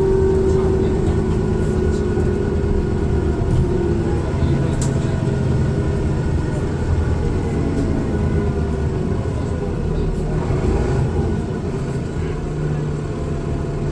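Dennis Trident II double-decker bus under way, heard on board: a low engine and road rumble with a turbo whine that falls slightly in pitch and fades over the first few seconds.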